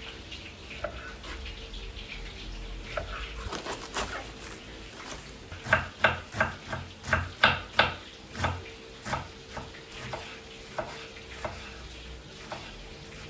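A run of short kitchen knocks and clinks, a utensil striking cookware, about two to three a second. They are loudest in the middle and thin out towards the end, over a steady low hum.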